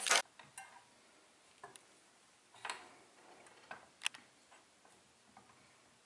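Scattered light clicks and taps of the homemade bench sander's steel frame and rest table being handled on a workbench, with a louder knock right at the start and a sharper click about four seconds in; the washing-machine motor is not running.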